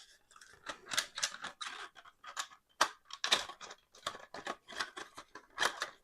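Clicks, rattles and scrapes of plastic radio housing parts being worked apart by hand, irregular, with one sharper click about three seconds in.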